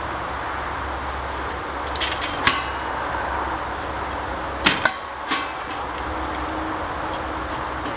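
Hens' beaks pecking grain from a galvanized metal feeder trough: a few sharp taps on the metal, a cluster about two seconds in and three more around the middle, over a steady background hiss.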